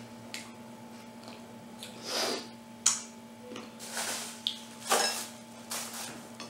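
A handful of short, scattered rustles and handling noises of food at a table, over a faint steady hum.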